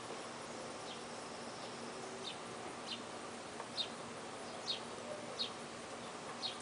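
Short, high, downward-sweeping chirps repeated about every half to one second over a faint steady hiss. No mower engine is running.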